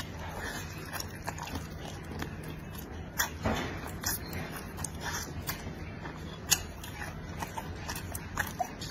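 Close-miked mouth sounds of chewing braised pig's trotter: wet smacks and clicks several times a second, with one louder smack a little over three seconds in, over a steady low hum.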